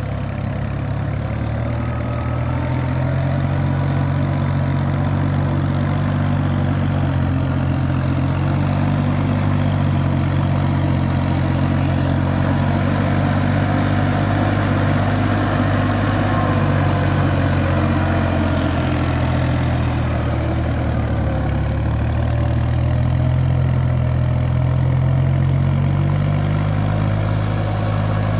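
Farm tractor's diesel engine running steadily as it plows through the flooded mud of a paddy field.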